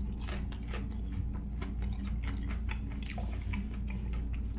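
Close-up chewing of a crunchy deep-fried breaded pickle: many quick small crackles and wet mouth clicks, over a steady low hum.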